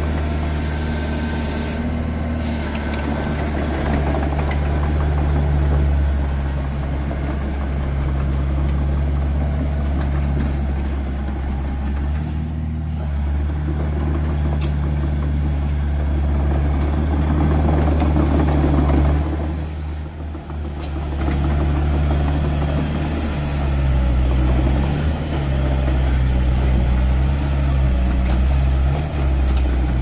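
Komatsu mini excavator's diesel engine running steadily as the machine moves on its tracks. The engine note shifts and wavers in the last few seconds.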